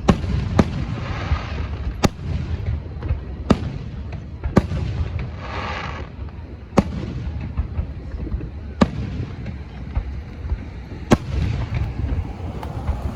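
Fireworks show: aerial shells bursting in about eight sharp bangs spaced one to two seconds apart, over a steady low rumble of echoing booms.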